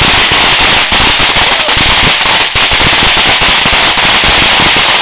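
Firecrackers going off in a dense, continuous rapid-fire crackle, very loud, with no pause between the reports.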